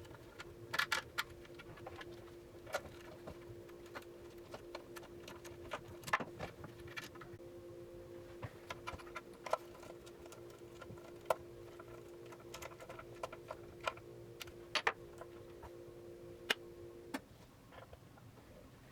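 Scattered sharp clicks and clinks of small metal hardware and tools as a longboard truck is bolted onto the deck, over a steady hum that cuts off about 17 seconds in.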